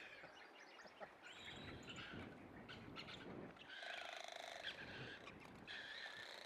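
Frigatebird colony calling: repeated high chattering calls, with a brief fast rattling trill about four seconds in.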